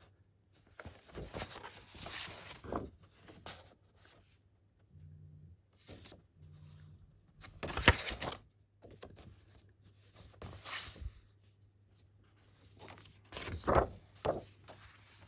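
Paper and card being handled and pages turned, in scattered short rustles, with one sharp tap about eight seconds in as the loudest sound.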